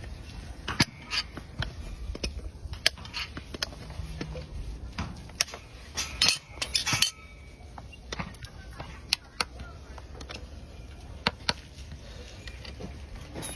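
Irregular sharp metallic clicks and clinks from a farrier's tools, with a louder cluster of strokes about halfway through.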